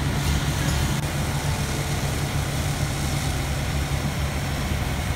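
Fire engine running steadily with its water pump engaged, a constant low hum, under the hiss of water spraying from the booster-line nozzle onto concrete.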